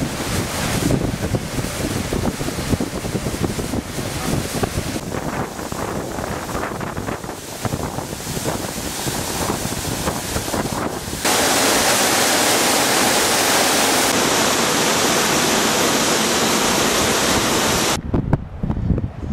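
Waterfall rushing, with wind buffeting the microphone. About eleven seconds in it changes abruptly to a steady, louder, even rush close to the falling water, which cuts off near the end, leaving quieter wind noise.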